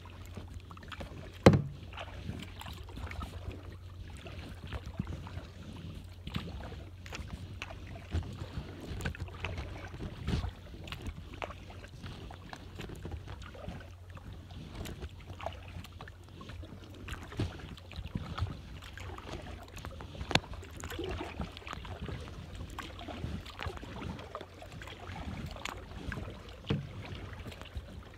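Kayak being paddled on calm water: the paddle dipping and dripping, with scattered taps and knocks of the paddle and the handheld phone, over a steady low rumble. A sharp knock about a second and a half in is the loudest sound.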